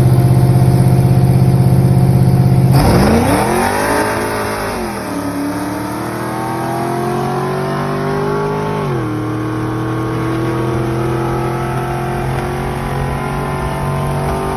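Race car engine held at steady revs, then launching hard about three seconds in and accelerating through the gears: the pitch surges and dips, climbs steadily, drops at a gear change near the nine-second mark and climbs again.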